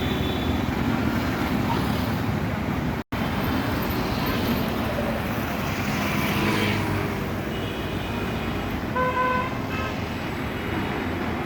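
Steady road traffic noise, with vehicle horns tooting several short times in the second half. The sound cuts out briefly about three seconds in.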